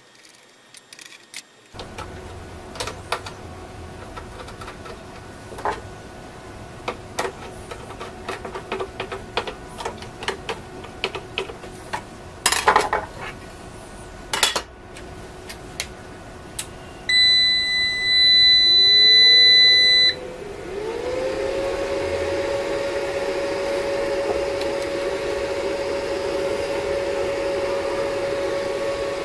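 Clicks and knocks of the solar inverter's casing and cover being handled and fitted, then the inverter's buzzer gives one long high beep of about three seconds as it powers up. Its cooling fan then spins up with a rising whine and keeps running with a steady hum.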